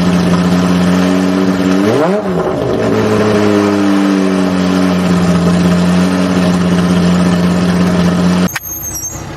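Ferrari F355 Challenge's 3.5-litre V8 running at a steady speed, with one quick rev blip about two seconds in. The engine sound cuts off abruptly near the end.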